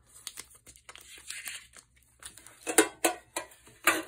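Foil Pokémon booster-pack wrappers crinkling and rustling as they are lifted out of a metal tin and handled, with sharp clicks. There are two louder crackles, about three and four seconds in.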